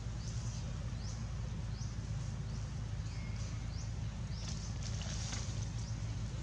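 Forest ambience: short, high, rising chirps repeat about twice a second over a steady low hum.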